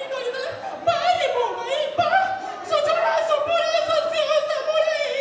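One voice singing into a handheld microphone over a PA system, with sliding pitches and then a long held note that wavers in pitch through the second half.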